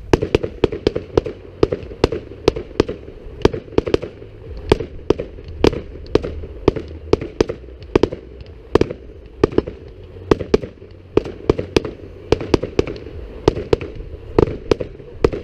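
Aerial fireworks going off in a rapid, continuous series of sharp bangs, roughly three a second, as shells burst one after another.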